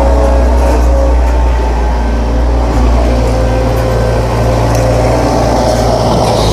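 A large engine running steadily close by, a loud low drone whose pitch wavers slightly.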